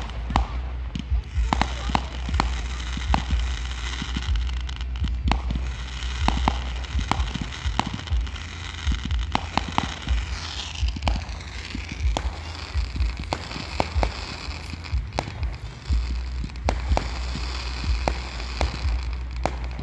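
Fireworks going off from the ground: a rapid, irregular string of sharp pops and bangs as the shots fire and burst into sparks, over a steady low rumble.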